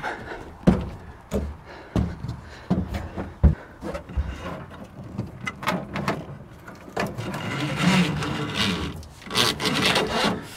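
Electrical cable being pulled up through a hole with a wire lead: irregular knocks and clicks with rubbing and scraping as the cable drags against the edge of the hole.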